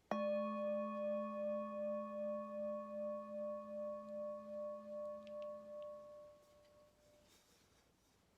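A bell struck once, ringing out with several clear tones at once and a wavering, pulsing swell, slowly fading away over about seven seconds.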